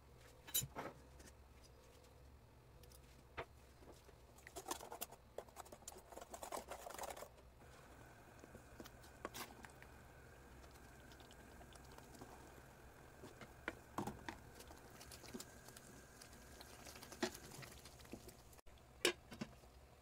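A spoon stirring thick ground coconut-and-spice paste in a stainless steel pan, with scattered knocks and scrapes of the spoon against the pan and a denser run of scraping in the first half.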